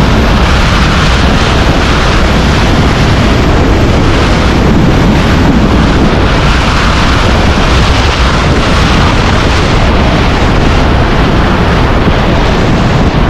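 Loud, steady rush of wind buffeting the microphone of a helmet camera in wingsuit flight, the airflow of a fast glide through the air.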